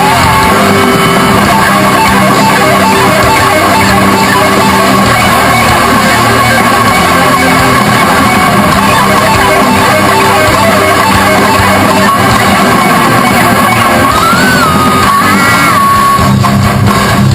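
Loud rock music led by electric guitar, the whole band cutting off suddenly at the very end.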